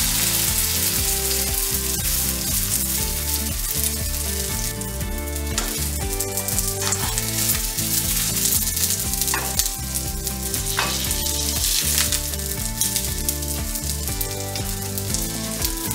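Wet seitan dough sizzling steadily as it fries in hot oil in a nonstick pan. Now and then a spatula scrapes and taps against the pan as the dough is pushed around.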